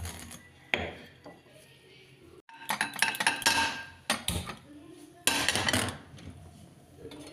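Metal kitchen utensils and dishes clinking and clattering. There are a few sharp knocks at first, then two longer stretches of clatter about three and five seconds in.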